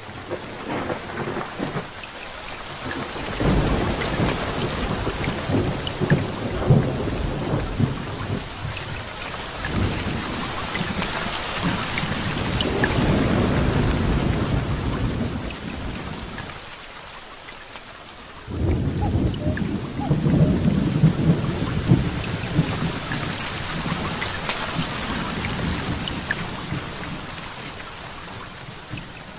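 Thunderstorm: steady rain with rolling thunder, long low rumbles that swell and fade, the first about three seconds in, another through the middle, and a third starting about two-thirds of the way through.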